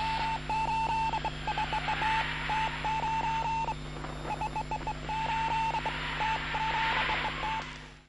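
Morse code sent over radio: one steady beep keyed on and off in short and long marks, over a hiss of radio static and a low hum. It all cuts off suddenly at the end.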